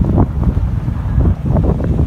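Wind buffeting the microphone over the rumble of a vehicle driving on a rough unpaved road: a loud, uneven low rumble with crackling gusts.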